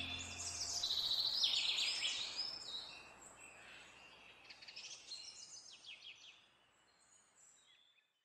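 Birds chirping in quick high runs of calls that thin out and stop about six seconds in, after the last held notes of a song's closing chord die away in the first second.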